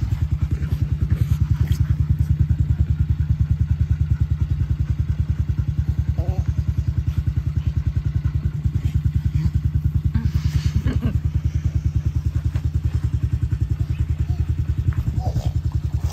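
Small dirt bike engine idling with a steady, rapid chug.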